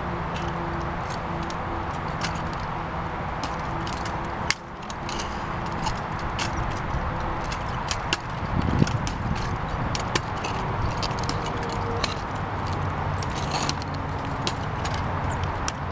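Wooden exoskeleton suit clacking as its wearer walks: wooden feet knocking on concrete and the metal joint hardware clinking in an irregular run of sharp clicks, with a few louder knocks, over a steady hum.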